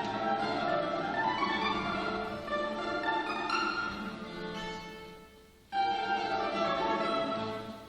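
Balalaika and guitar duet playing fast baroque music, a dense run of plucked notes. About five seconds in the playing dies away to a brief pause, then starts again suddenly and loudly, and sinks once more near the end.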